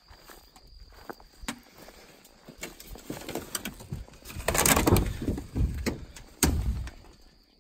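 A corrugated metal sheet being lifted off the ground by hand, scraping and rattling loudly about halfway through, with a second shorter clatter a couple of seconds later.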